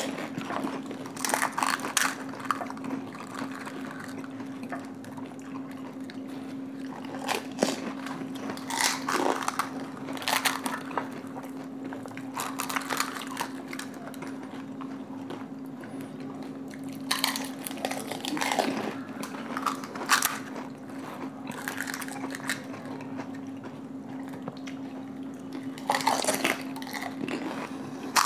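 Panipuri eating: crisp hollow puri shells being cracked open, dipped into cups of spiced water and bitten and chewed, giving irregular crackly crunches scattered throughout. A steady low hum runs underneath.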